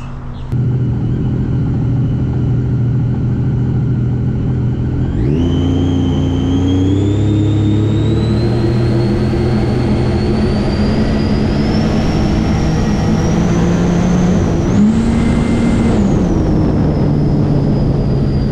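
Supercharged Sea-Doo RXP-X race jet ski engine heard from on board, running steadily, then opened up about five seconds in and pulling hard under full throttle. A high whine climbs steadily as it gains speed, with a brief rev up and back down near the end.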